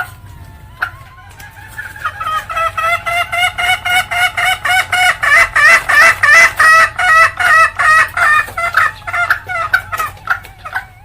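Junglefowl hen's ngekek cackle: a long run of rapid, repeated 'kek' notes, about three or four a second, that builds in loudness and then tapers off toward the end.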